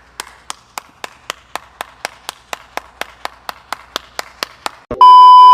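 A run of evenly spaced sharp ticks, about four a second, then near the end a very loud, steady electronic beep.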